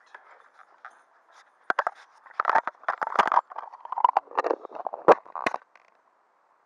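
Handling noise on the microphone: rustling and a string of sharp knocks and clicks as the camera is moved about against a puffer jacket. The noise is loudest from about two to five and a half seconds in.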